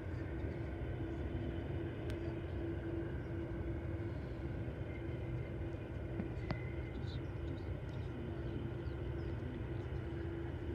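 Distant jet aircraft on approach, heard as a steady far-off rumble, with a constant low hum and a few faint clicks.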